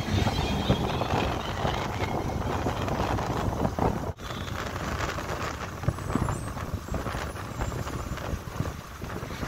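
Motorcycle ride: wind rushing over the microphone mixed with the bike's running engine and road noise, steady throughout.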